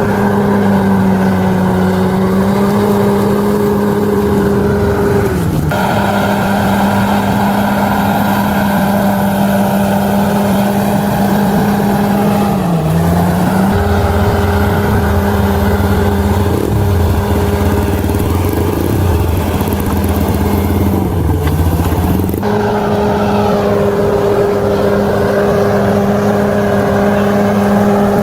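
Bulldozer's diesel engine running steadily at high revs, its pitch sagging briefly three times as the engine takes load while pushing soil.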